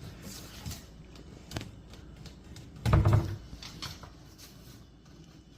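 Cabinet door knocking and clattering as a dog tugs at a rubber glove caught in it: a few light knocks, then a louder thump about three seconds in.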